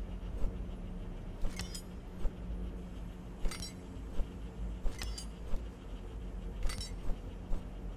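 Light clinks of small hard objects, each with a brief high ring, one every second or two, over a steady low hum.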